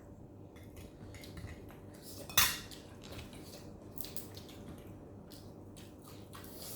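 Eating utensils clinking and tapping against dishes, with scattered light taps and one sharp, loud clink about two and a half seconds in.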